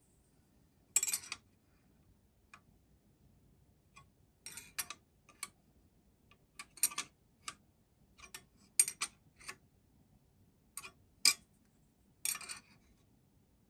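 Irregular light metallic clicks and taps, about fifteen of them, as an engineer's square is set against and moved along assembled model locomotive frames and the frames are tapped to check they sit solid and square.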